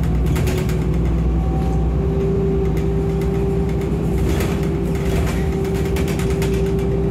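City transit bus running, heard from inside the passenger cabin: a steady low engine rumble, with a steady whine that comes in about two seconds in.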